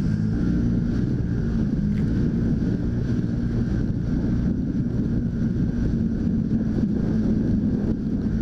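Side-by-side UTV engine running steadily as the machine drives along a wet gravel trail, heard from onboard, with wind on the microphone.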